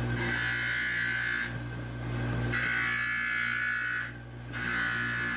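Dental model trimmer running with a steady motor hum while a gypsum stone model is ground against its spinning abrasive wheel. The grinding comes in three passes of about a second and a half each, breaking off briefly as the model is lifted from the wheel.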